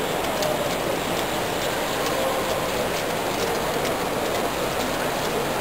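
Steady din of a busy exhibition hall with distant voices, and faint irregular light clicking from an OO gauge model freight train running along the track.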